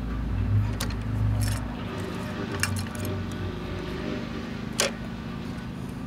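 Small sharp clicks and clinks, about five, the sharpest near the end, as the diecast model garbage truck's Curotto-Can grabber arm and a plastic toy cart are handled. Under them runs a steady low rumble that swells in the first second and a half.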